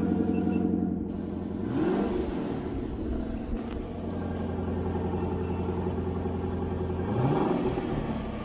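Lexus LC sports car's engine idling steadily, revved briefly twice: once about two seconds in and again near the end.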